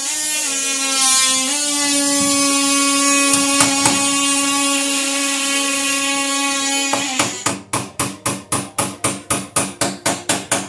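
Electric drill motor whining at a steady speed, its pitch stepping up slightly early on. About seven seconds in it switches to short on-off pulses, about four a second.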